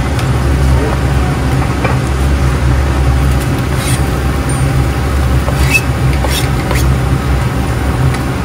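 Kitchen stove noise, a steady low hum under a hiss, with a few light knife clicks and scrapes as chopped onion is pushed off a plastic cutting board into a frying pan, about four seconds in and again around six seconds.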